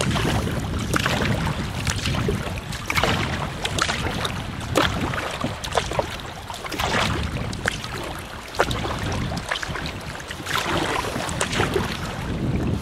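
Kayak paddling on choppy sea: irregular water splashes from paddle strokes and waves against the hull, over a steady low rumble.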